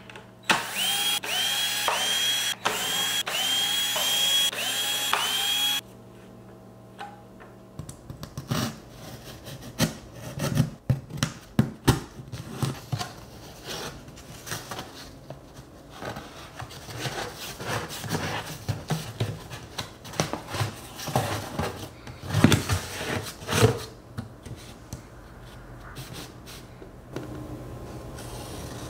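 Cordless drill driving screws into a subwoofer's mounting ring in about seven short trigger pulses, each with a rising whine, lasting about five seconds. After that come quieter scattered taps, clicks and rubbing as a cardboard template and hand tools are handled on the carpeted board.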